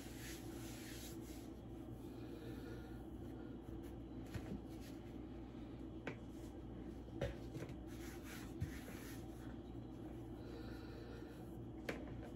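Hands rubbing and smoothing flour over rolled-out pie dough on a wooden board, a faint brushing with a few soft taps, over a low steady hum.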